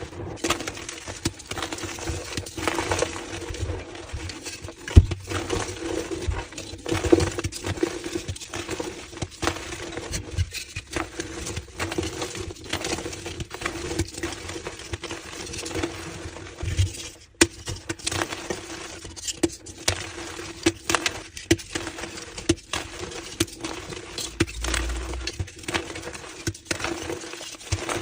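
Reformed blocks of dusty gym chalk being crushed and crumbling, a dense, irregular run of small crunches and clicks.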